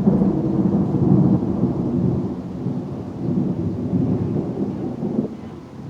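Thunder from a close lightning strike: a low rumble that slowly fades, swelling again about halfway through.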